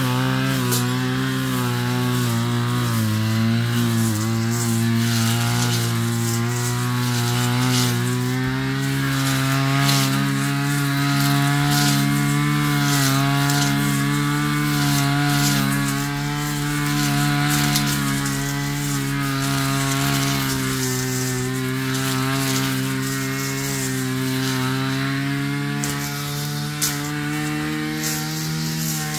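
Backpack brush cutter engine running at high speed while its blade cuts through tall grass and weeds, the engine pitch dipping slightly now and then, with ticks and swishing as the blade strikes the stems.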